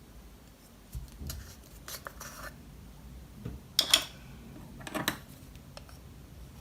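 Slime being handled and mixed by hand, giving a few short, crisp crackles and clicks, the loudest about four seconds in.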